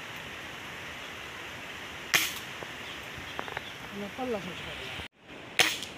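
Air rifle shots: two sharp cracks about three and a half seconds apart.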